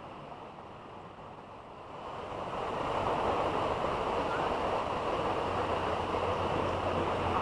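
Rushing water of a jungle stream and waterfall, a steady noise that swells louder about two seconds in and then holds.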